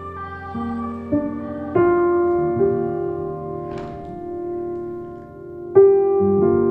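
Slow background piano music: held notes and chords, each struck and left to ring. Fresh chords enter about two seconds in and again near the end, the last one the loudest.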